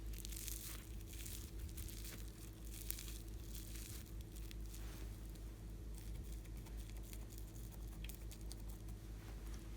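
Slime being squished and stretched by hand, giving a steady stream of fine sticky crackles and small pops.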